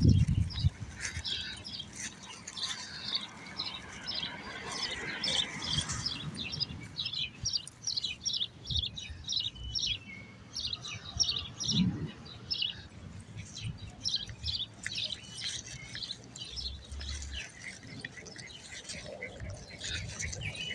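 Birds chirping in quick, repeated short high notes, with a few soft low thumps underneath.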